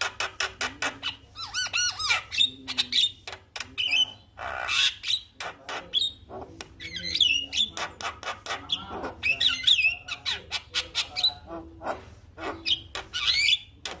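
Javan myna singing a fast, varied chattering song: rapid runs of harsh clicking notes mixed with squawks and whistled, gliding notes, with a longer rasping screech about five seconds in.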